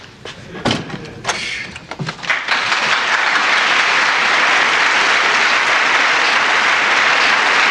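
A few thumps, then a studio audience applauding steadily from about two and a half seconds in, greeting the characters' entrance.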